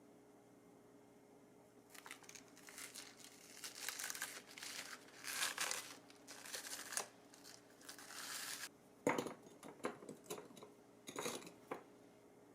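Plastic packaging being crinkled and handled for several seconds, then a run of light clicks and taps.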